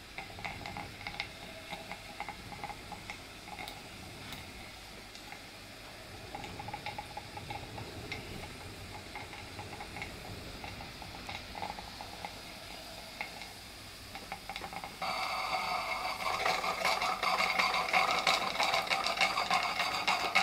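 BIX gas burner hissing under the Märklin 16051 model steam engine's boiler, with sizzling and small ticks as the boiler heats. About fifteen seconds in, a much louder sound with steady ringing tones and rapid clicking cuts in abruptly.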